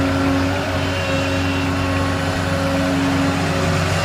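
Volvo 160C excavator's diesel engine working steadily under load as the bucket is curled out of the clay and the boom lifts the load, a continuous even drone with several held tones.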